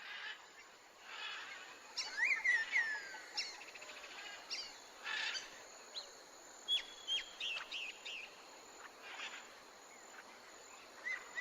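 Scattered bird chirps and whistled calls, some sliding down in pitch, over a faint steady outdoor hiss.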